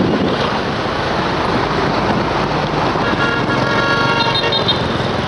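Steady wind and traffic noise. A vehicle horn sounds for a few seconds after the middle, a steady tone with several pitches and a few short high pulses near the end.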